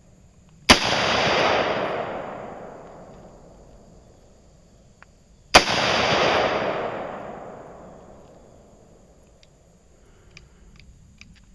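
AR-style rifle chambered in .223 fired twice, about five seconds apart, each shot followed by a long fading echo.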